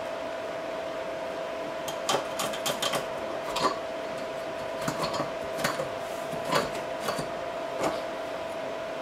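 About a dozen irregular clicks and light knocks as a thin cleaning brush is worked in the white plastic drain trap under a washbasin, over a steady hum.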